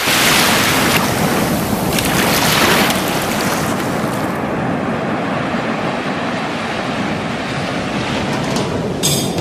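Ocean surf breaking on a shore: a steady rush of waves with wind. It is loudest in the first few seconds and turns duller after about four seconds.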